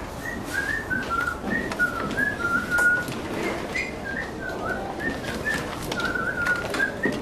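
A string of short, high whistled notes in a jaunty, tune-like run, some held briefly, with light clicks and taps beneath.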